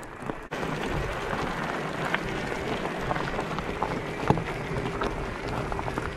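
Mountain bike tyres rolling over a loose gravel track, with stones crunching and clicking under the wheels and wind on the microphone. It starts about half a second in. A faint steady whine runs underneath from about three seconds in.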